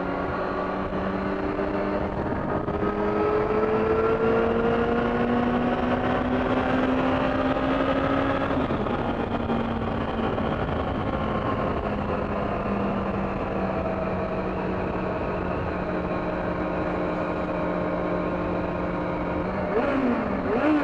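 Motorcycle engine climbing steadily in revs, then dropping back about eight and a half seconds in and running at a steady cruise, inside a road tunnel. Near the end, a quick throttle blip: a rev bomb.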